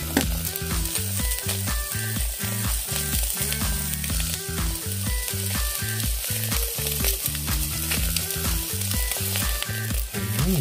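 Pacific saury sizzling and crackling as it grills over charcoal, fat spitting with many small pops. Background music with a steady, note-by-note bass line runs underneath.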